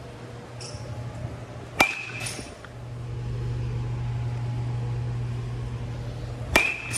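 Baseball bat hitting balls off a batting tee twice, about five seconds apart, each crack followed by a brief high ring from the bat.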